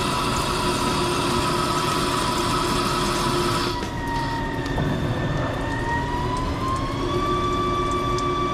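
CNC lathe turning a steel bar, with a steady motor whine over a hiss of cutting and coolant. About halfway through, the higher hiss drops away and the whine dips, then climbs in pitch as the spindle speed changes.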